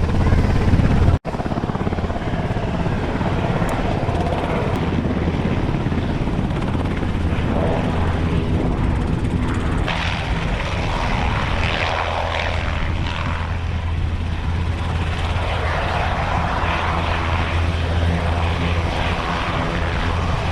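An aircraft's engine running steadily, a continuous low drone with a steady pitched hum. The sound drops out for an instant about a second in.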